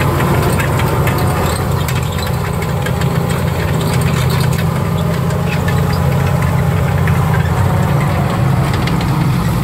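M18 Hellcat tank destroyer's Continental R-975 nine-cylinder radial engine running loud and steady as the vehicle drives past on its tracks, with a dense clatter over the low engine rumble.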